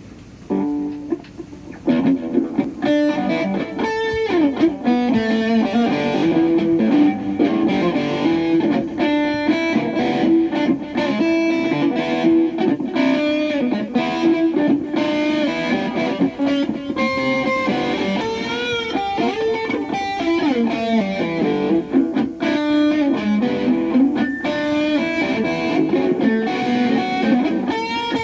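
Strobe Rambler electric guitar played through a small Roland amp with overdrive: a blues tune of picked single notes and bent strings, picking up in level about two seconds in.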